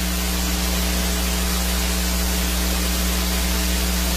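Steady hiss with a low electrical mains hum underneath, the background noise of the recording in a pause between words.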